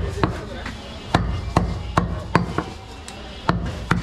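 A heavy butcher's knife chops goat meat on a round wooden chopping block. It makes a run of sharp chops, roughly two a second and unevenly spaced, with a short pause about three seconds in.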